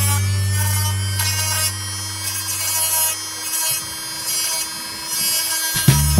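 Small hand-held mini grinder (rotary tool) with a sanding drum running at a steady whine while grinding against the foam edge of a glider wing. Its low hum drops away about three and a half seconds in and comes back just before the end.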